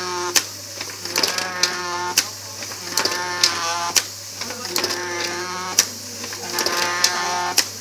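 Folding unit of a printing machine squeaking as it runs. A pitched squeal of about a second recurs with each cycle, four times, among sharp mechanical clicks and over a steady hum. The squeak is one that the operator thinks may need greasing.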